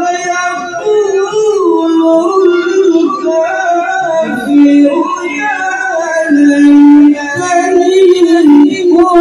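A male qari reciting the Qur'an in melodic tilawah style into a microphone, amplified, his voice gliding through ornamented phrases, with a long steady note about six to seven seconds in.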